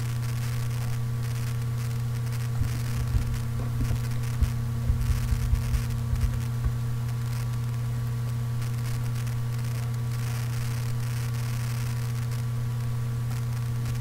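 Steady electrical hum with a few fainter higher hum tones and a hiss from a desk microphone recording with its noise suppression switched off. A scattering of soft low thumps comes between about two and a half and seven seconds in.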